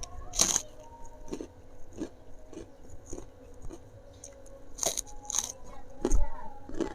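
Crunchy food bitten and chewed close to the microphone: sharp crunches about half a second in and again around five and six seconds in, with quieter chewing crunches between.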